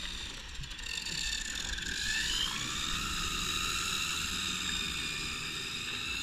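Geared electric motor and three-blade propeller of a quarter-scale RC Piper PA-18 floatplane whining under power on its take-off run across the water. The pitch rises about two seconds in as the throttle opens, then holds steady.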